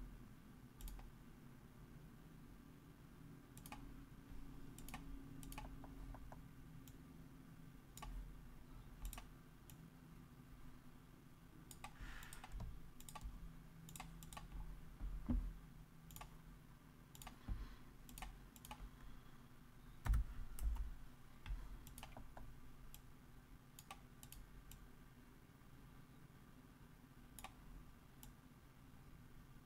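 Faint, irregular clicks from a computer mouse and keyboard, scattered every second or so, over a low steady hum.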